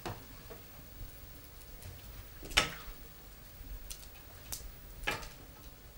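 Wood fire in an open fireplace crackling: a few sharp pops and ticks over a low rumble, the loudest about halfway through.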